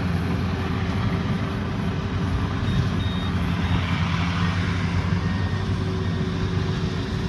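Combine harvester engine running steadily at a constant speed.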